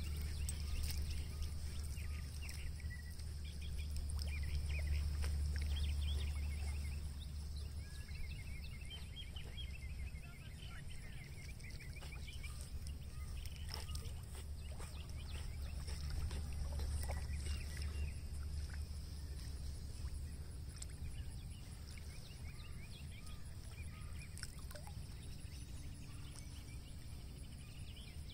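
Wind rumbling on the microphone, loudest at the start and again about two thirds of the way through, with small birds chirping in short repeated trills and some light water splashing.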